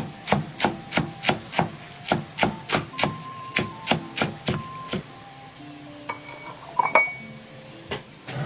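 Chinese cleaver chopping scallion greens on a thick round wooden chopping block, about three even chops a second. The chopping stops about five seconds in, followed by a few lighter knocks.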